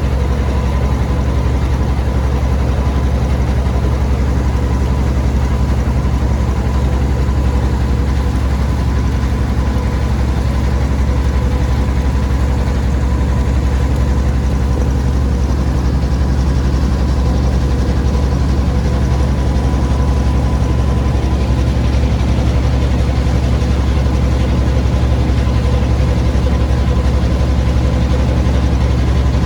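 An engine running steadily at constant speed, a heavy low drone with a thin steady whine above it.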